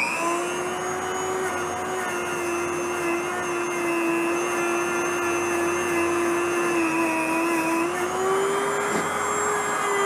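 Dremel rotary tool running at high speed against a steel bicycle frame, sanding off rust: a steady high whine that starts as the tool comes up to speed and sags a little in pitch about seven seconds in as it bears on the metal.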